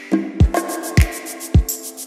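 Background music with a steady beat: a kick drum almost twice a second, with hi-hats and held chords.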